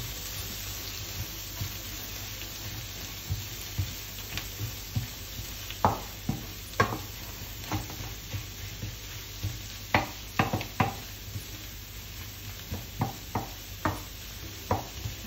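Diced vegetables and scrambled egg sizzling steadily in a hot non-stick frying pan while a wooden spatula stirs them, with irregular clicks and scrapes of the spatula against the pan, in clusters around the middle and near the end.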